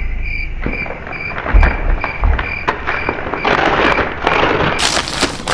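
Gift wrapping paper crinkling and rustling as a wrapped present is handled and pulled at, in irregular crackling bursts with a few knocks. A faint high beep repeats about twice a second until near the end.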